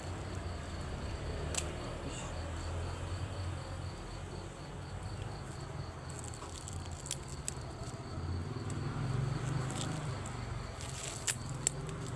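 Insects chirping in an even, rapid pulse of several chirps a second over a steady low rumble, the chirping dropping out about halfway through. Two sharp clicks sound near the end.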